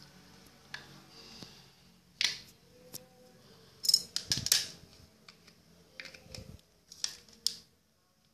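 Irregular clicks, taps and short scrapes of a lipstick and small plastic container being handled, with the loudest cluster about four seconds in.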